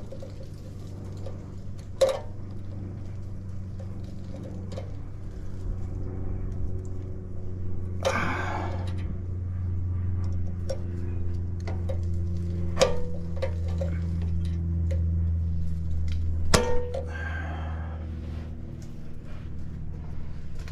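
Sharp metallic clicks and a brief scrape as pliers bend a cotter pin back over a castle nut on the front suspension. A steady low hum runs underneath, swelling through the middle and then easing off.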